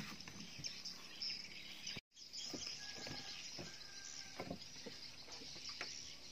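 Outdoor riverside ambience: a steady high-pitched insect hiss with a few faint chirps. Several soft knocks on wooden raft planks come as someone moves about on them, and the sound cuts out for a moment about two seconds in.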